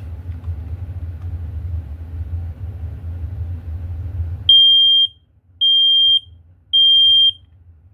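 Firex model PB smoke alarm sounding its test: three loud, high-pitched beeps, each about half a second long and evenly spaced, the temporal-three alarm pattern. Before the beeps there is a few seconds of low, steady background rumble.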